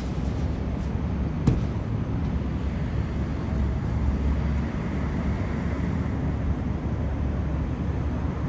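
Steady low rumble of road traffic, with a single sharp click about a second and a half in.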